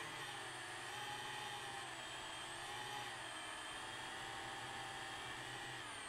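DJI FPV drone's motors and propellers whining steadily, the pitch sinking and rising slightly as the throttle changes.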